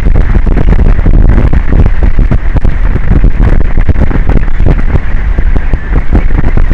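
Wind buffeting an outdoor microphone on an offshore tower: a loud, steady, distorted rumble with constant crackling.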